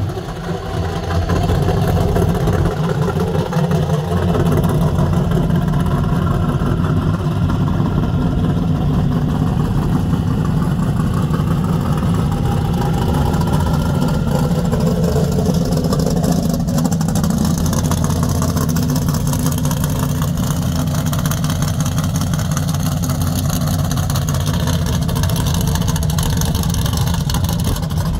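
Modified 1970 Chevrolet Chevelle SS's V8 engine idling loudly with a steady, rapid throb as the car rolls slowly past.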